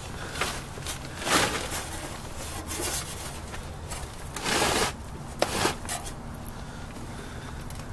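A few short scraping, rubbing noises and a sharp click. The loudest scrape comes about a second and a half in, a longer one follows about four and a half seconds in, and the click comes just after it.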